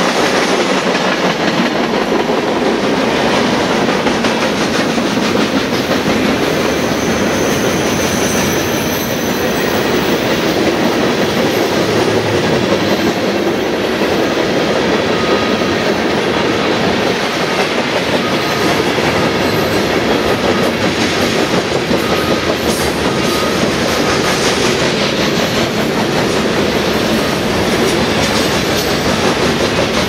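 Freight train cars rolling past: a steady, loud rumble and clatter of steel wheels on the rails, with a faint high squeal about eight seconds in.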